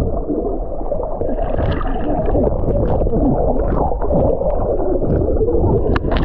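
Muffled, gurgling rush of churned water in a waterfall pool, a steady dense noise with scattered small splashes and knocks, as heard close to or under the water's surface.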